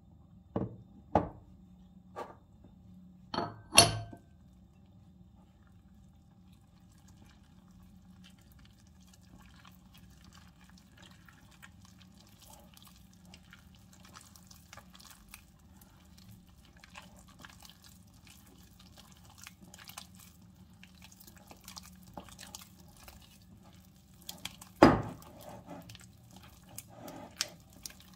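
Kitchen work sounds: about five sharp knocks of kitchenware in the first few seconds, then faint scattered crackling. A loud knock comes near the end, followed by a few lighter ones.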